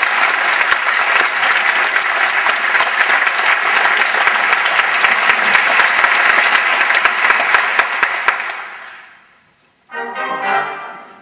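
Theatre audience applauding at the end of a ballet variation, dense clapping that dies away about nine seconds in. The orchestra then starts playing again near the end.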